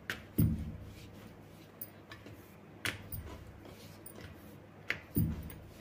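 Wooden rolling pin on a wooden board as dough is rolled out and turned. There are three soft knocks, about two and a half seconds apart, each followed by a brief low rumble. The first and last are the loudest.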